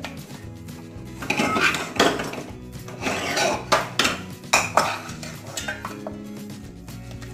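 Steel spoon scraping and tapping against a steel pan and plate while a cooked coconut and sugar-syrup mixture is scooped out. There is a scrape about a second in, then several sharp taps between three and five seconds in.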